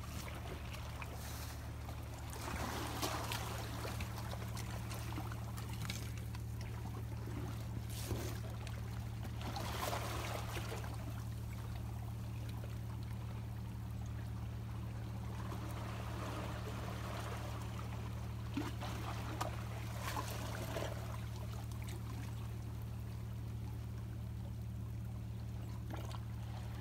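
Sea water washing and trickling among shoreline rocks, rising in soft swells every few seconds, over a steady low hum, with a few faint clicks.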